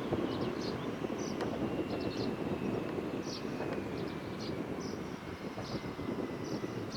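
Cessna Citation Latitude business jet's twin turbofan engines running: a steady rumble with a thin high whine that slowly falls in pitch.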